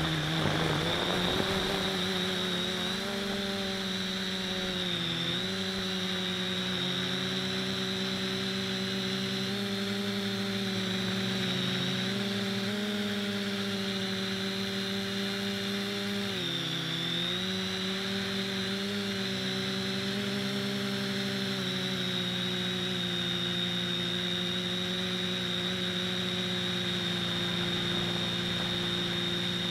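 Neewer quadcopter's motors and propellers buzzing steadily in flight, heard close up from its own onboard camera. The pitch dips briefly twice, about five seconds in and again around sixteen seconds, as the motors slow and pick up again.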